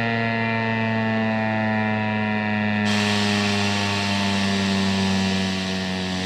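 American Signal T-135 electromechanical outdoor warning siren winding down after its test: a steady wail of several tones together, slowly falling in pitch.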